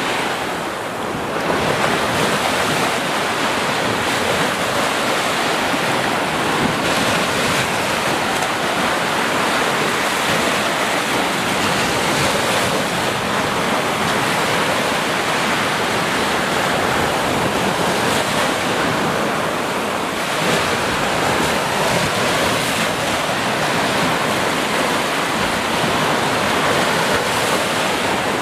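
Ocean surf: small waves breaking and washing up a sandy beach in white foam, a steady, continuous rush of water.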